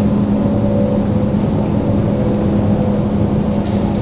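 Steady drone of an engine running at an even speed, with a constant low hum.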